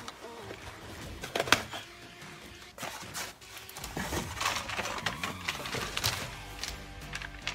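A cardboard shipping carton being opened and its contents handled: scraping and rustling of the packaging, with a sharp knock about a second and a half in and a stretch of crackling rustle in the second half. Background music plays underneath.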